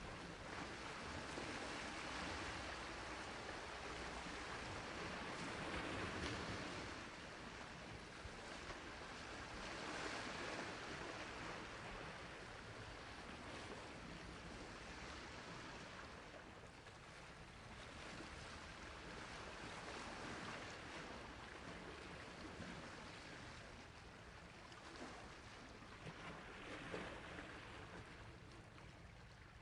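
Sea waves washing onto a shore: a continuous rush of surf that swells and recedes every few seconds.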